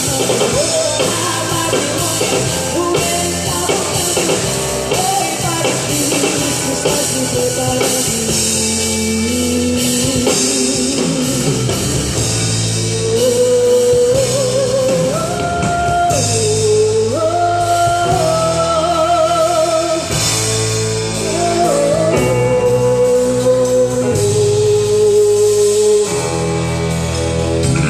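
Live worship band playing a rock-style gospel song with drum kit and guitars, a melody line of held and sliding notes carried over the band.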